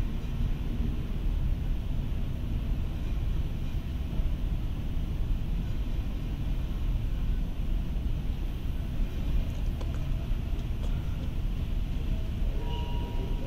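Steady low rumble of road traffic, buses and cars passing through a city junction, with a short higher tone near the end.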